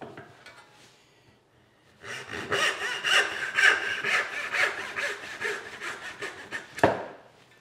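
Brass-backed back saw cutting a wedge from a pine block: a run of quick back-and-forth saw strokes starting about two seconds in, ending in a sharp knock near the end.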